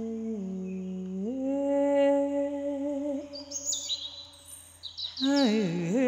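A voice humming slow, held wordless notes that step down and then up, fading out about three seconds in. High bird chirps follow, then the voice swoops down and back up near the end.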